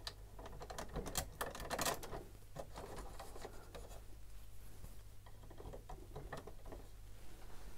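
Faint, irregular clicks and taps of small plastic LEGO pieces being handled and pressed onto studs, busiest in the first two seconds, over a steady low hum.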